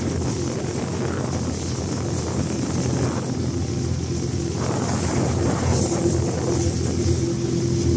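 Engine of a Williams 280 jet-drive inflatable tender running steadily under way, with a low even hum and a rush of water and wind over it.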